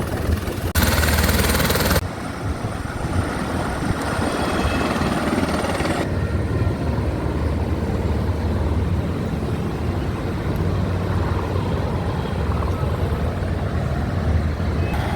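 Helicopter running with a steady low engine and rotor noise. The sound shifts abruptly a few times, as between separately recorded clips.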